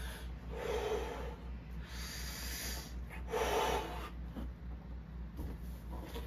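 A thick natural-latex party balloon being blown up by mouth: two long breathy blows into it, with a breath drawn in between. The blowing stops about four seconds in.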